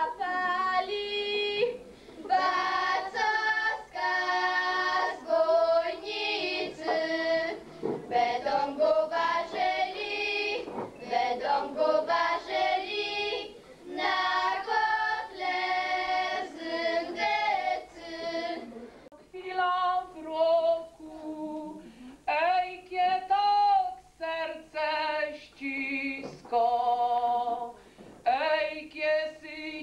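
A group of girls singing a folk song together without instruments. About two-thirds of the way through, a cut brings in a woman singing solo.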